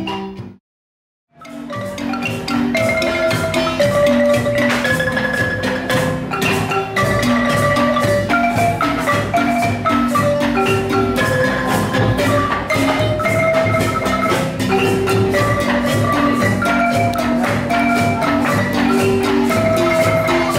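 Marimba music: quick runs of struck wooden notes over a repeating bass line. It cuts out completely about half a second in and resumes about a second later.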